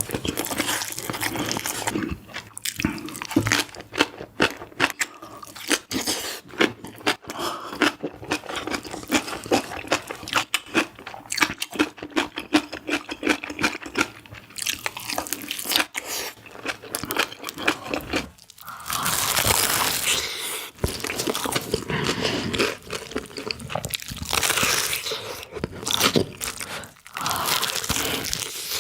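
Close-miked eating: crisp crunching and chewing of food, many sharp crunches in quick succession. After a short break about two thirds in, a denser, hissier chewing sound takes over.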